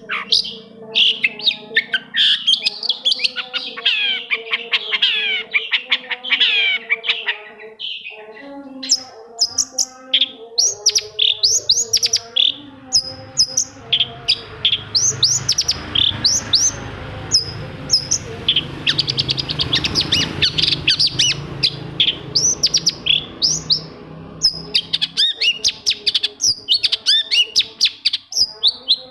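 Long-tailed shrike (cendet) singing: a fast, varied run of sharp chirps and quick falling notes with hardly a break. A faint steady hum lies underneath, with a stretch of low rumbling noise in the middle.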